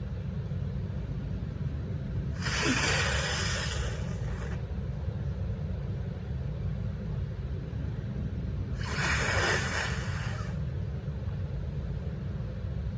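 Two long breathy rushes of air through a woman's nose, each about a second and a half, several seconds apart, over a steady low rumble.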